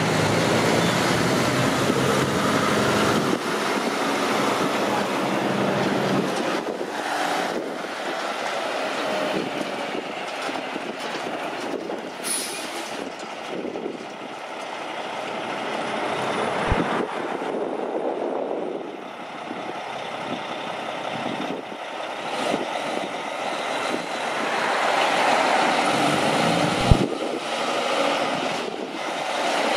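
Heavy truck traffic passing on a highway. A diesel engine's low drone fills the first few seconds, then steady road and trailer noise swells and fades, with two sharp knocks.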